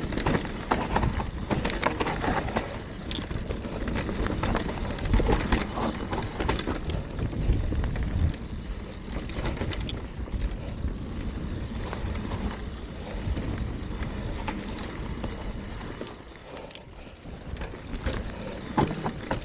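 Mountain bike descending a rough dirt trail: tyres crunching over dry leaves and loose stones, with a steady run of knocks and rattles from the bike over the bumps.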